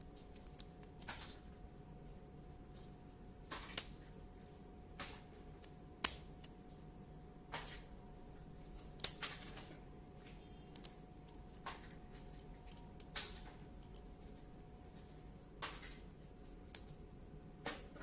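Metal shackle of a fingerprint padlock clicking as it is pushed into the lock body and released, about a dozen sharp clicks one to two seconds apart, a few with a short rattle after them.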